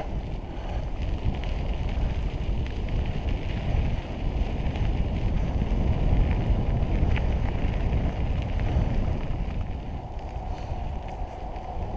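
Wind buffeting the microphone of a camera riding on a moving mountain bike, a steady low rumble, with faint ticks and rattles of the tyres and bike rolling over a gravel trail.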